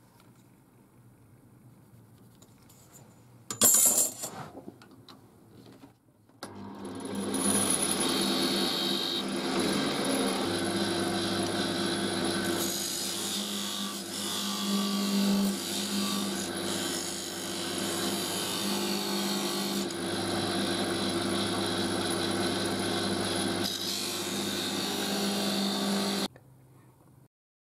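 Wood lathe running with a thin parting tool cutting into a spinning oak blank to part off a 10 mm slice: a steady motor hum under the varying scrape of the cut. A sharp knock comes a few seconds before the lathe sound starts about six seconds in, and it stops abruptly near the end.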